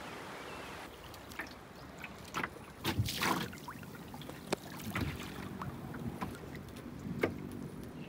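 Kayak paddle dipping into calm water, making a few irregular splashes and drips, the biggest about three seconds in.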